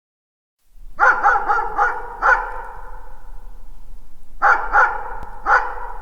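A dog barking in the distance, each bark trailing an echo: a quick run of five barks about a second in, then three more near the end.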